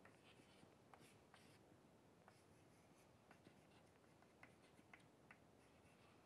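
Chalk on a chalkboard while writing, faint: a scatter of short, irregular taps and light scrapes as the chalk strokes and lifts off the board.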